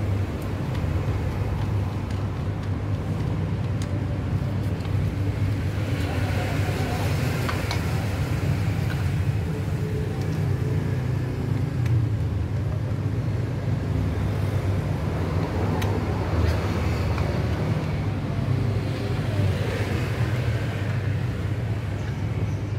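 Steady low rumble of motor-vehicle noise that runs evenly without let-up.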